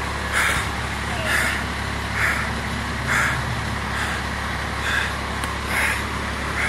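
Fire engine's diesel idling steadily, with a short chirp repeating about once a second.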